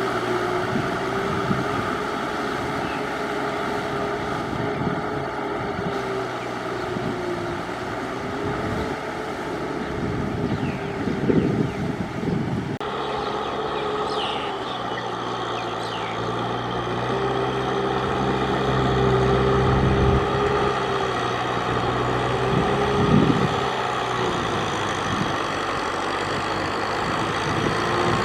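Tractor engine running steadily under load while ploughing through deep mud, its pitch wavering slightly; the engine note shifts abruptly about halfway through.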